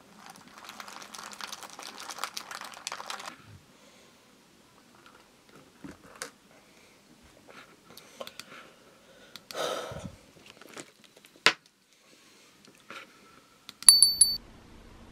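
A straw stirring a glass of dalgona coffee, clinking rapidly against the glass for about three seconds. Scattered small clicks and knocks follow, and a short high chime sounds near the end.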